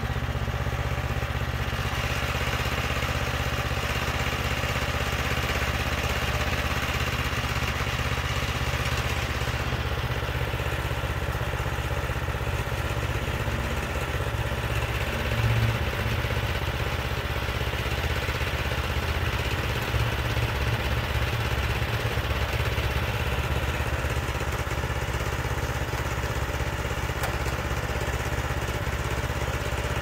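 Predator gasoline engine on a Harbor Freight portable sawmill running steadily at idle, with a brief louder knock about halfway through and some light clattering after it.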